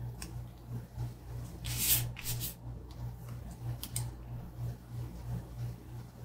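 Paper stickers being peeled and a sticker sheet being handled: a short rustle about two seconds in, then a couple of softer rustles and a few light clicks. A low, steady hum runs underneath.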